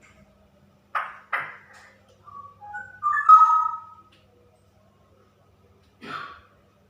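Female straw-headed bulbul calling: two short harsh notes, then a brief phrase of clear, fluty whistled notes jumping up and down in pitch, the loudest part, and one more harsh note near the end.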